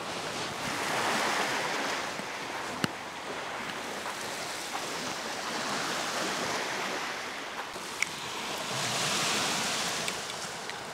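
Small sea waves washing onto a sandy shore, a steady wash that swells twice. There are two short sharp clicks in between.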